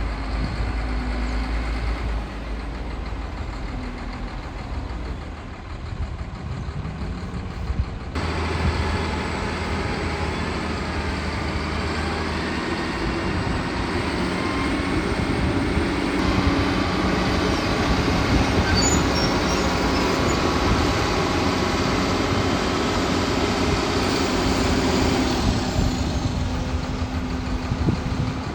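Diesel engine of a Caterpillar hydraulic excavator running steadily. The sound changes abruptly about eight seconds in, then grows louder and fuller for a stretch in the second half.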